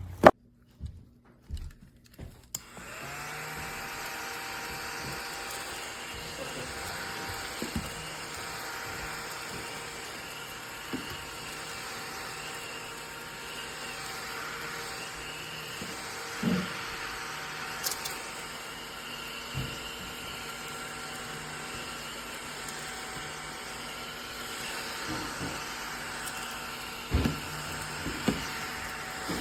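ODISTAR cordless desktop mini vacuum: a sharp click right at the start, then its small motor spins up about two and a half seconds in and runs with a steady whine, with a few light knocks as it is worked over the countertop.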